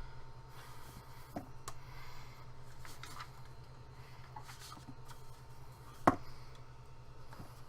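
Small handling sounds at a 3D printer during bed levelling: light scrapes and scattered clicks, with one sharp click about six seconds in, over a steady low hum.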